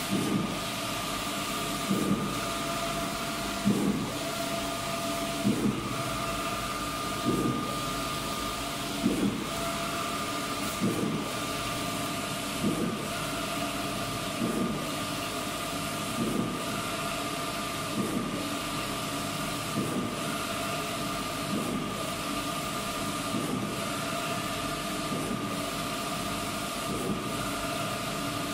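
Large-format inkjet printer printing a banner, its print-head carriage sweeping back and forth over a steady mechanical hum, with a short clunk about every two seconds.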